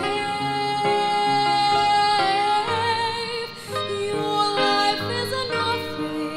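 Female soloist singing, holding long notes with vibrato over instrumental accompaniment.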